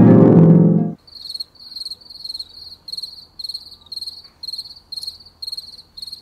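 Loud music cuts off about a second in. It is followed by a cricket chirping steadily, a high pulsed chirp about twice a second, over a faint low hum.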